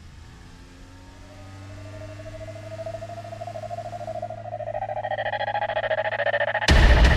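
Electronic background music building up: a steady low drone under a tone that slowly rises in pitch and grows louder, then a loud beat hits near the end.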